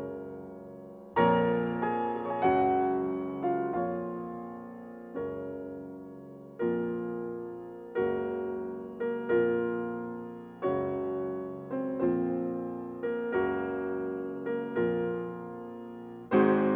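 Background piano music: slow chords struck about once a second or so, each ringing and fading before the next.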